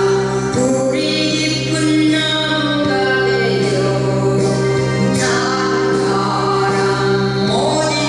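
A woman singing a Korean trot song live into a microphone, holding long wavering notes over instrumental backing.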